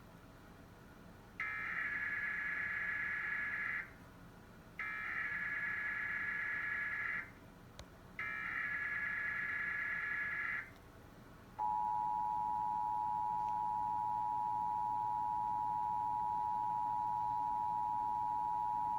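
Emergency Alert System test broadcast. Three bursts of SAME digital header data, each a warbling, chirping buzz about two and a half seconds long with about a second between them. After a short pause comes the steady, loud two-tone EAS attention signal (853 and 960 Hz sounded together).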